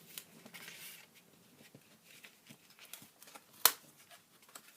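Cardstock being handled and positioned: light paper rustles and small taps, with one sharp tap a little over three and a half seconds in.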